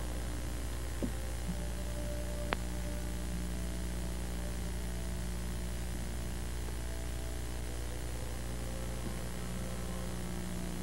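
Steady electrical mains hum and hiss with no other sound, apart from two faint clicks about one and two and a half seconds in.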